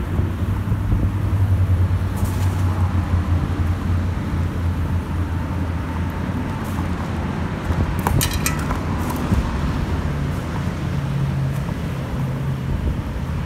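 Steady low rumble of highway traffic mixed with the bike rolling over grass, with a brief cluster of sharp clicks and rattles about eight seconds in.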